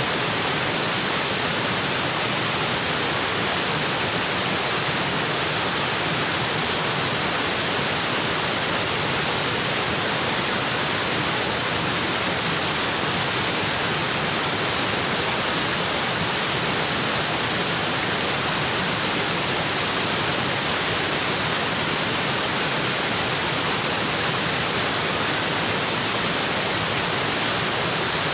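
Waterfall in a tropical forest, water falling onto rocks in a steady, even rush with no change.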